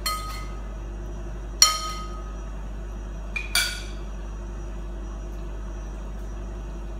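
A metal spoon clinking against a ceramic soup bowl four times, sharp short ringing taps, the loudest about a second and a half in and the last two close together.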